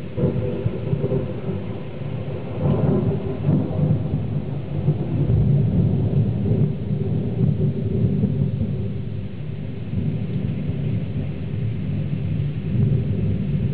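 Thunder: a long, loud rolling rumble that breaks in suddenly, swells a couple of seconds in and keeps rolling.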